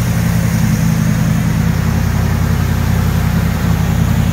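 Small-block GM V8 with headers and dual exhaust idling steadily.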